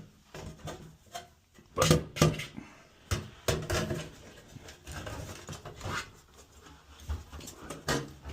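Metal bath fan housing being worked back and forth in a drywall opening: irregular knocks, clatters and scrapes as it is forced toward its place.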